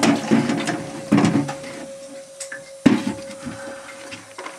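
Hollow knocks and clatter of plastic buckets and a drain hose being handled: three sharper knocks, near the start, about a second in and just before three seconds, with smaller clunks between. A thin steady hum runs underneath.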